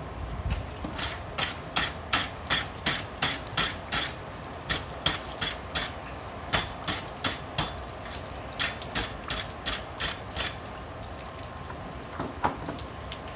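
Hammer blows on a hot steel railroad spike on an anvil, about three a second in runs of sharp, ringing strikes with two short breaks. A few lighter knocks come near the end.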